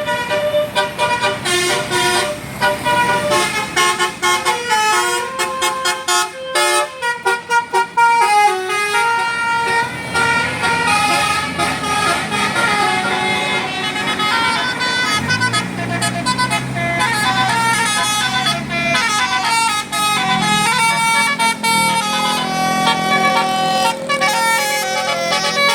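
Bus 'telolet basuri' musical horn playing a tune, several tones sounding together and stepping from note to note. About halfway through, a lower tone joins underneath with a short upward glide.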